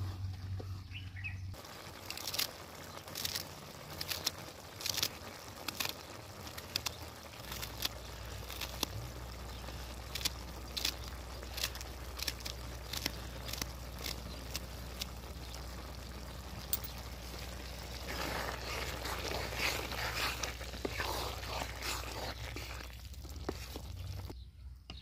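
Wooden spoon stirring cauliflower curry in a steel kadai over a wood fire, with frequent light knocks and scrapes against the pan and a soft sizzle.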